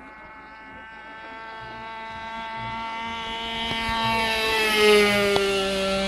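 Model airplane's motor running steadily as the plane flies in, growing louder, with its pitch dropping about four to five seconds in as it passes overhead.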